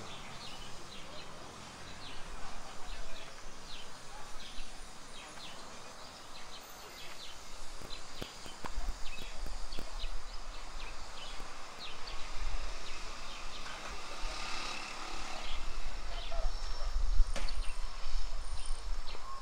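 Outdoor ambience with many short, high chirps repeating throughout, and a low rumble that comes in about halfway through and grows louder toward the end.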